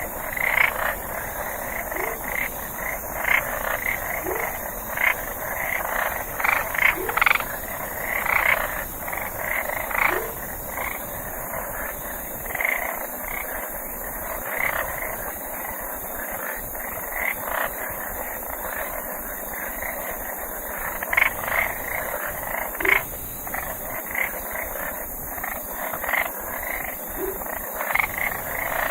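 Night chorus of frogs croaking in many short, irregular calls, with a brief rising chirp every two or three seconds over a steady high hiss.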